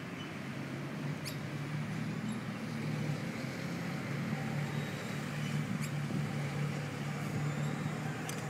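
Steady low engine hum of road traffic, with a few faint clicks over it.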